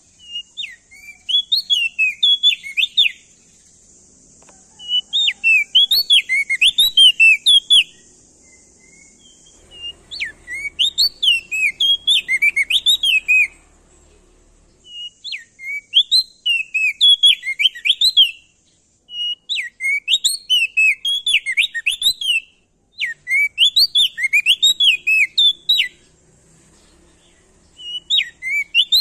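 Prenjak daun / opior jambul (crested heleia) singing loudly in repeated bursts of rapid, sweeping chirps. Each burst lasts a few seconds and is followed by a short pause, with a faint hiss behind the song in the first half.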